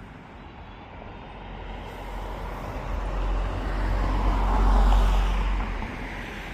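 A road vehicle passing by: its sound swells over several seconds, peaks about five seconds in, then falls away.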